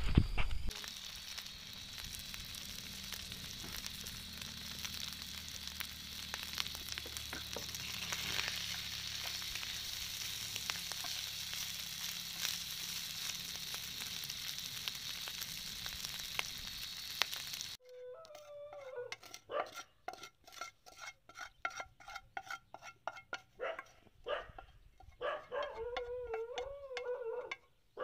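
Chicken biryani sizzling and crackling in a frying pan on a portable gas stove while it is stirred with a wooden spatula. The sizzling cuts off abruptly about two-thirds of the way in. It is followed by a quieter wavering pitched sound broken by rapid clicks.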